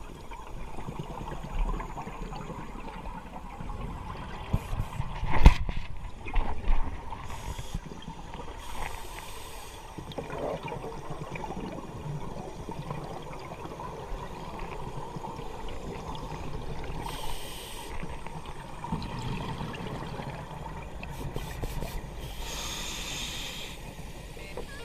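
Scuba regulator heard underwater through a camera housing: breathing noise with bursts of hissing bubbles every few seconds, from a regulator leaking air through a loose low-pressure seat. A sharp knock about five seconds in is the loudest sound.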